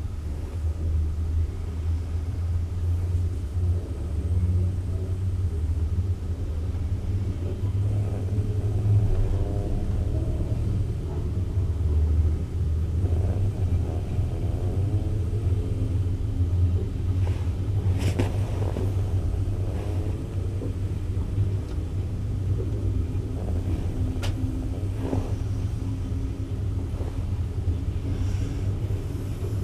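Passenger train carriage rolling slowly out of a station, a steady low running noise with some wavering tones in the middle and a few sharp clicks in the second half.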